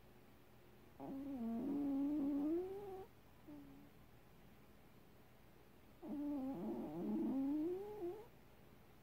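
A sleeping house cat snoring: two long snores about five seconds apart, each lasting about two seconds, with a wavering pitch.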